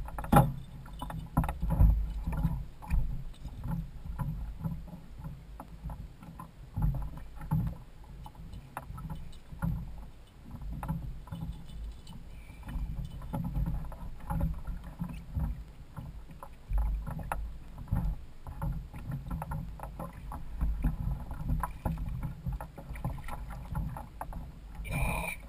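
Sea water sloshing and splashing against a kayak's hull, with irregular small knocks and clicks from handling on board.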